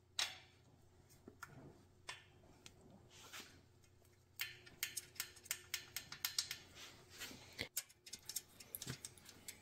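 Faint metallic clicks and ticks of hand tools working the rocker arms and valve adjusters on the cylinder head of a 1983 Porsche 911SC flat-six engine. A few scattered clicks come first, then from about four seconds in a quicker run of ticks, several a second.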